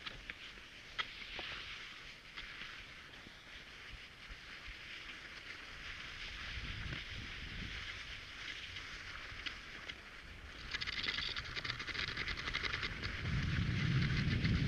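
Cross-country skis hissing as they glide over packed snow, with scattered clicks. The hiss grows louder about two-thirds of the way through, and a low rumble joins it near the end.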